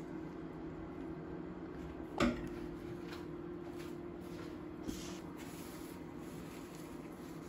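A single sharp knock about two seconds in, like a hard object set down or a cupboard door closing, over a steady low hum; a fainter click follows a few seconds later.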